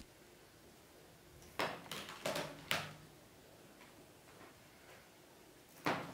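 Sharp wooden knocks and clacks: four in quick succession about a second and a half in, with a short low ring after them, then one more loud knock near the end. These come from the cats bumping the wooden frame of a cat hammock as they shift about.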